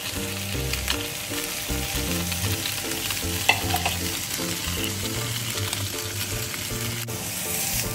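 Gyoza frying in an uncovered nonstick frying pan, a steady sizzle from the oil and water in the pan, with one sharp click about halfway through.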